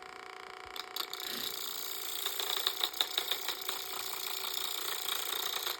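Theragun percussive massage gun running, its motor whining steadily, while its head hammers against a lock to shake it open. Rattling clicks from the lock come through in the middle, and the gun cuts off near the end.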